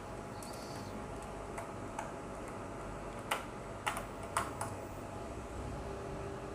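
A handful of short, sharp clicks and taps over a steady low hiss, the loudest few close together about halfway through: a 3.5-inch hard drive and its mounting screws being handled and fitted into the metal case of a Dahua NVR.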